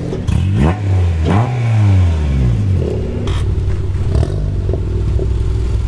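Honda Civic Si's turbocharged four-cylinder revved twice through its exhaust, the pitch sweeping up and falling back each time, then settling into a steady low idle about three seconds in.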